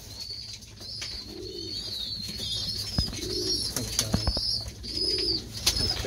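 Racing pigeons cooing in a loft: low coos about every two seconds, over a steady high chirping, with a few sharp knocks about halfway through and near the end.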